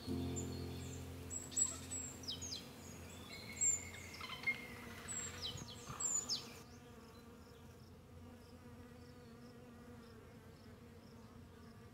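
Small garden birds chirping and giving quick downward whistles over a low hum. About six and a half seconds in, the sound turns fainter and steady, with a thin insect buzz.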